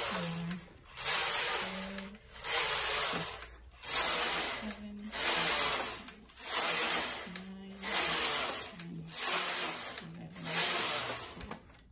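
Domestic knitting machine carriage pushed back and forth across the metal needle bed, knitting one row with each pass. Each pass is a rushing, clattering sweep, about eight in quick succession, and they stop near the end.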